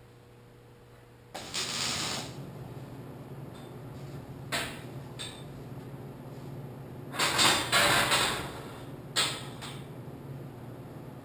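MIG welding arc crackling in short bursts as steel rods are tack-welded to a pipe frame: one about a second and a half in, two brief ones near the middle, and a longer, loudest one from about seven to eight and a half seconds in, over a steady low hum.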